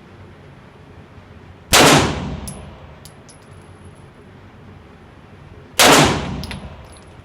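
Two single gunshots about four seconds apart, each ringing out in a long reverberant tail, with a few faint clicks after the first: the shooter's last rounds of the string.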